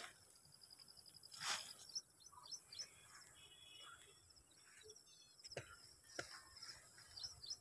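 Near silence outdoors: faint, rapid chirping of small birds, with a brief whoosh of noise about a second and a half in and a couple of soft clicks later on.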